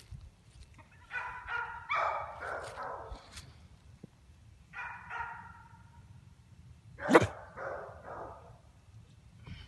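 Pit bull terriers barking in three short groups: one about a second in, another around five seconds, and the loudest single bark a little after seven seconds.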